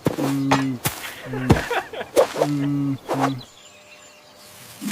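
Cartoon sound effects: a run of sharp hits and swishes mixed with short, flat buzzing tones, then a quieter stretch for the last second or so.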